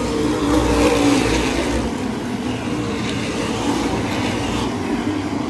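Open-wheel modified race cars racing on the oval, several engines running at speed together; the deep low rumble eases about two seconds in as the nearest cars pull away.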